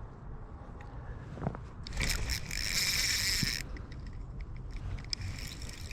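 Fishing reel whirring for about a second and a half, with small clicks and handling rustle around it.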